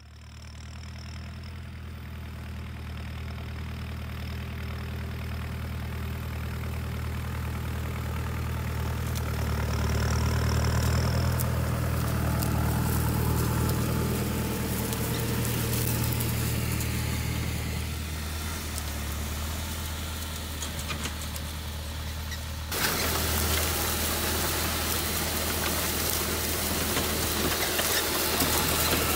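Massey Ferguson tractor's diesel engine running steadily while it pulls a Monosem precision planter, growing louder as it passes close by about ten seconds in. About two-thirds through, heard up close, the planter's seeding units add a dense clattering noise as they cut through dry crop residue over the continuing engine hum.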